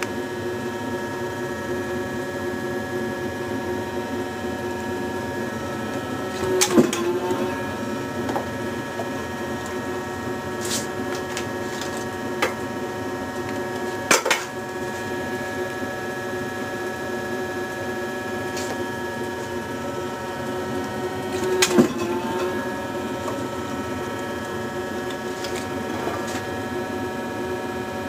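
Leather clicking press running with a steady motor hum. About 7 s in, and again about 22 s in, the motor briefly bogs down as the press comes down with a loud knock on the steel-rule cutting die. Between the strokes there are a few lighter knocks as the die is moved on the cutting board.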